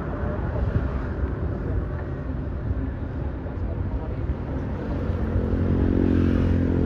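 Road traffic rumbling past. About five seconds in, a bus engine approaches, its steady hum growing louder.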